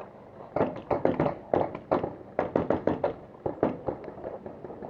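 Paintball markers firing: rapid sharp pops in quick groups of three or four, starting just over half a second in and stopping about a second before the end.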